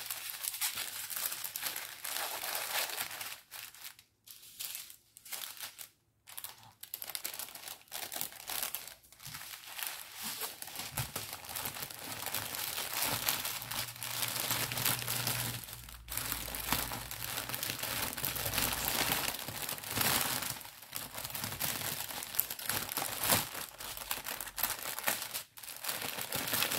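Plastic packaging of a diamond painting kit crinkling and rustling as it is handled and packed back up, with two short pauses about four and six seconds in.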